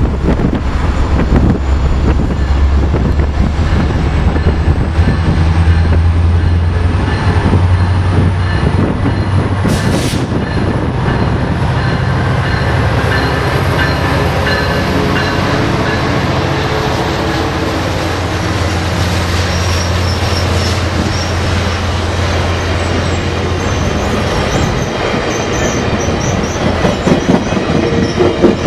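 Caltrain Baby Bullet passing at speed: the MP36PH-3C diesel-electric locomotive's engine drones steadily as it goes by, followed by bilevel coaches rolling past. One brief sharp crack comes about ten seconds in. The engine drone fades in the second half, and near the end louder, uneven wheel clatter is heard as the rear cab car crosses the rail joints.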